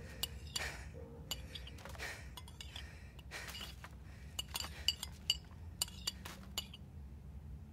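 A knife scraping and clinking against a plate as leftover food is scraped off it, with a few soft swishes first and a quick run of sharp clinks in the second half.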